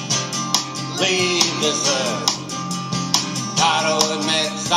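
Country song with acoustic guitar over a steady beat, and a man singing in two phrases, about a second in and again near the end.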